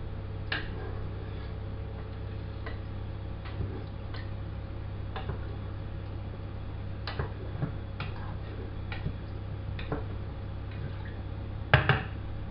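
Pot of rice and water heating on a stove: scattered faint ticks and pops over a steady low hum, with a louder clatter near the end.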